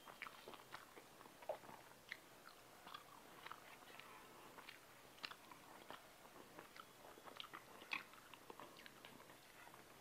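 Faint close-miked eating sounds: chewing, lip smacks and soft irregular clicks as rice is mixed and eaten by hand.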